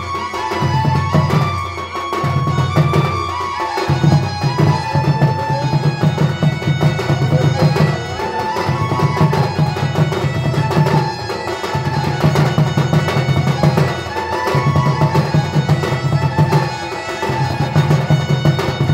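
Traditional folk music led by a double-headed barrel drum (dhol) played by hand. It goes in phrases of quick strokes a few seconds long, with short breaks between them, under a wavering melody line.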